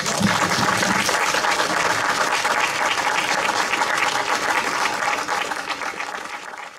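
Audience applauding: a dense patter of many hands clapping, dying away near the end.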